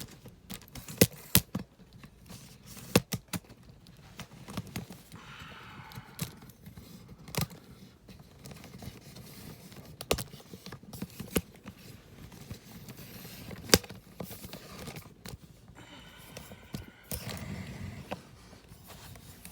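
Handling noises: scattered sharp clicks and knocks with bouts of scraping and rustling, as the camera is moved and set up.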